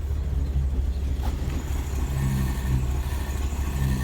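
IH 1600 truck's engine running steadily with a low drone. A short click comes about a second in, and a second, pitched engine note comes in around the middle.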